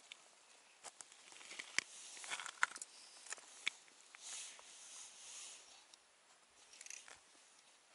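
Faint rustling and scattered small clicks of an ice angler handling his short jigging rod and winter clothing at the hole, with a soft hiss in the middle.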